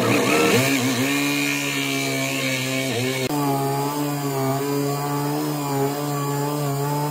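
Electric drill running steadily under load as its boring bit cuts into pine, a single steady motor pitch. About three seconds in the sound changes abruptly as a larger bit is boring.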